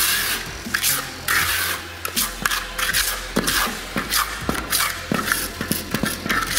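Steel trowel scraping and rubbing over a freshly laid microcement floor in short, irregular strokes, a few a second, polishing the wet surface.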